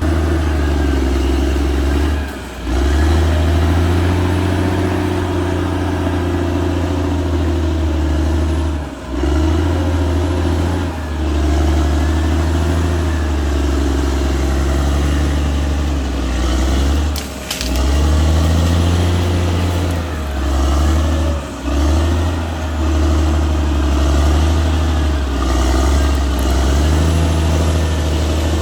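Caterpillar D6R XL bulldozer's diesel engine running under load as it pushes earth, a steady low drone that eases off and picks back up in brief dips every few seconds.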